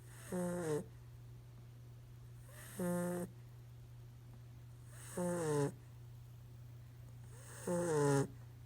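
Sleeping five-month-old puppy snoring: four short, pitched snores about every two and a half seconds, each lasting about half a second.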